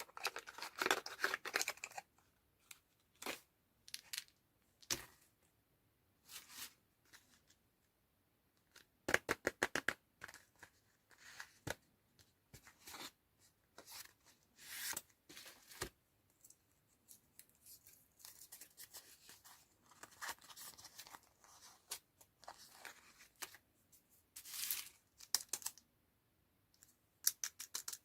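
Candy packaging being torn open and crinkled in short, irregular bursts with quiet gaps between, including quick runs of small crackles.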